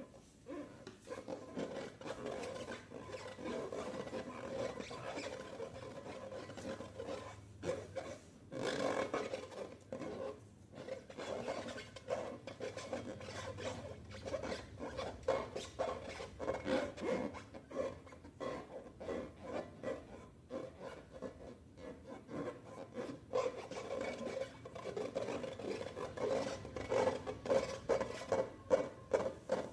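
Slime being stirred and squished, a continuous run of irregular sticky crackles and squelches. It turns into regular squishes, about three a second, near the end.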